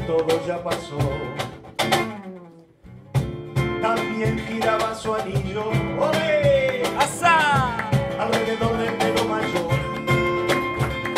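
Live Uruguayan band music with acoustic guitar and hand percussion keeping a steady beat. The music fades out about two seconds in and comes back in sharply a second later, with some sliding notes a few seconds after that.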